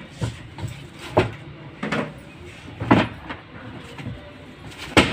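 Irregular knocks and clatters about a second apart, the loudest near the end, over a low steady hum: parts of a washing machine being handled and fitted during a motor repair.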